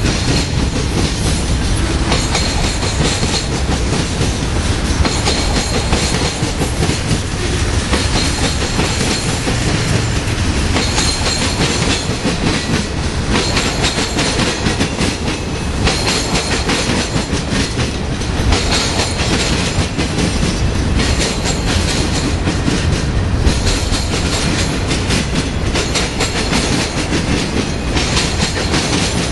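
A Union Pacific manifest freight train's covered hoppers and tank cars rolling past close by: a steady loud rumble with the wheels clattering over the track, and a faint high wheel squeal that comes and goes.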